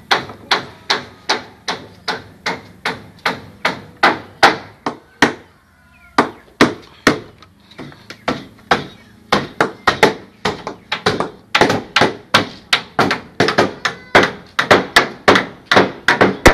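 Hammer blows on wood, nailing timber, in a steady run of about three strikes a second. The hammering breaks off for about a second some five seconds in, then resumes a little faster.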